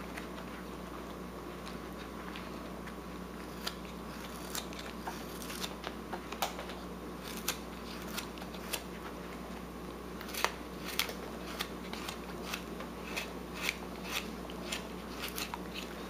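Hand carving knife cutting into a wooden block during rough-out whittling: irregular sharp slicing cuts and chips snapping off, more frequent in the second half, over a faint steady hum.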